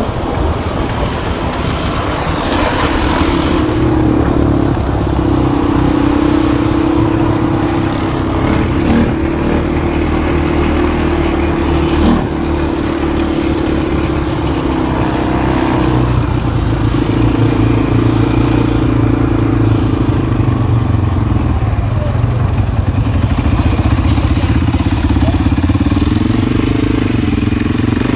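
ATV engine running steadily while riding, its pitch rising and falling with the throttle.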